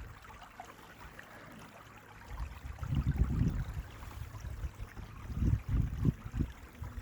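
A creek running faintly, overlaid by low rumbling buffets of wind on the microphone, one about three seconds in and a second, choppier one about five and a half seconds in.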